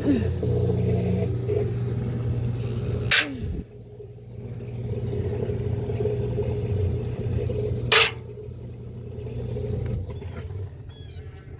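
Washing machine running with a steady low hum, with two sharp clicks, about five seconds apart; the hum drops away near the end.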